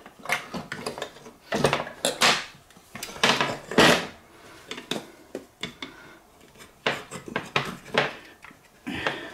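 A refrigerator ice maker's plastic housing and parts being handled and worked with a screwdriver, giving irregular clicks, knocks and light clatter.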